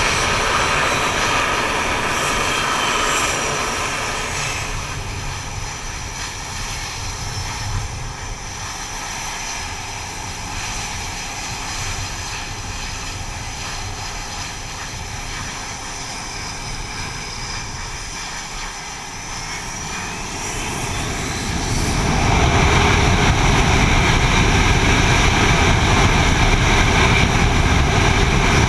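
F/A-18 jet engines running on a carrier flight deck. About three-quarters of the way through a rising whine leads into much louder, steady engine noise.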